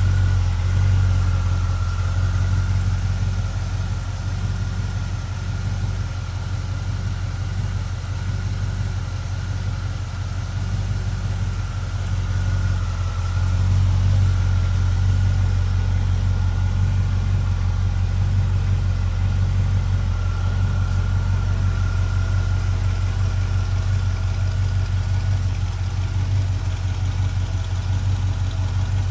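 1957 Chevrolet 150 sedan's engine idling steadily, with a thin steady whine above the low drone.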